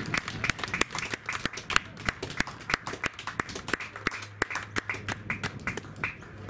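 A small group of spectators clapping: many separate claps that thin out and stop near the end.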